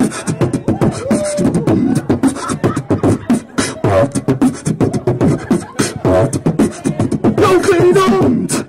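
A man beatboxing into a handheld microphone cupped to his mouth: a fast, steady stream of mouth-made kick, snare and hi-hat clicks, with short hummed pitched notes mixed in near the end.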